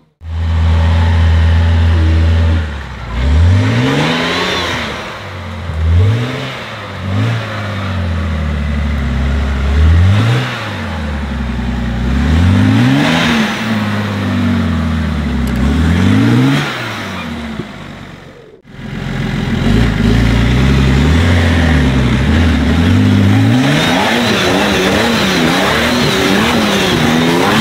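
Competition off-road 4x4's engine revved hard again and again under load on a climb, its pitch rising and falling every second or two. About two-thirds through the sound drops out briefly, then the engine holds high revs with quicker swings.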